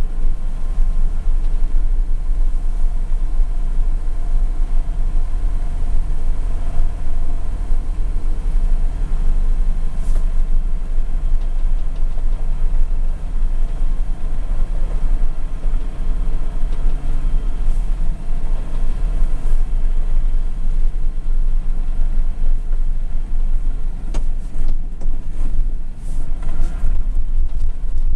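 Mercedes-Benz Unimog engine running under way with a steady low drone, heard from inside the cab. A few short knocks come through about ten seconds in and again near the end.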